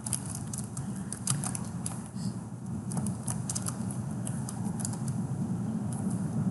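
Computer keyboard keys clicking as a sentence is typed, a few unevenly spaced keystrokes a second, over a steady low hum.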